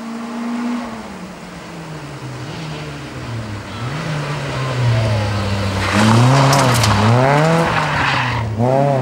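Peugeot 106 rally car's engine at full race pace, its revs rising and falling in waves as the driver shifts and works the throttle into a hairpin. About six seconds in, tyres scrabble and scatter loose gravel as the car slides through the bend, then the engine revs climb again as it accelerates away.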